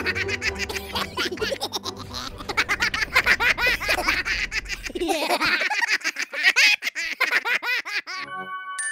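High-pitched cartoon character voices laughing and giggling in quick bursts, over background music that stops about five seconds in. A short steady electronic tone sounds near the end.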